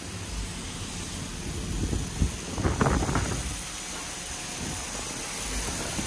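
Car rolling slowly out of a touchless wash bay: a steady hiss, with a short cluster of low thumps and knocks about two to three seconds in.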